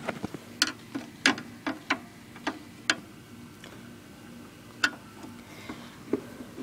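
Sharp, irregular clicks and taps of a screwdriver working at the screws of an old film projector's cover, about a dozen in the first five seconds, over a faint steady hum.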